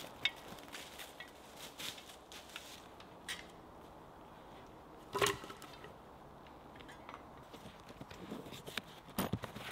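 Scattered light crackles and snaps of dry leaves and twigs on a forest floor, with one sharper crack about five seconds in.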